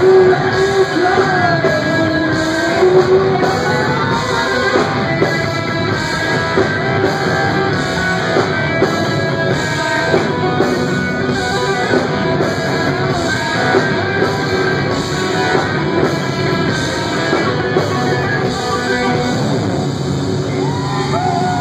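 Live rock band playing: a man singing over electric guitar and drums, loud and dense throughout.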